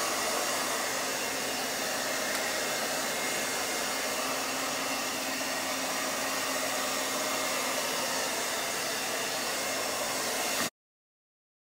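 Blow dryer running steadily, a rush of air with a faint hum under it, drying a wet puppy's coat. It cuts off abruptly near the end.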